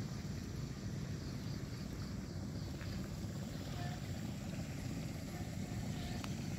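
A small motor, likely a motor scooter, running steadily: an even low rumble that does not change in pitch. A few faint short chirps sit above it.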